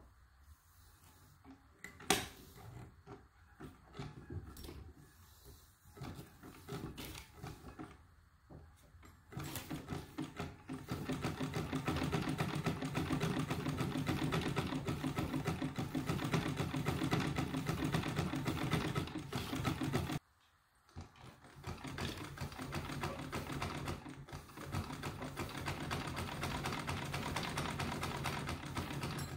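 Singer 66 treadle sewing machine stitching through fabric, its needle and feed clattering rapidly and steadily. A few scattered clicks come first. The machine starts about ten seconds in, stops abruptly about twenty seconds in, then runs again.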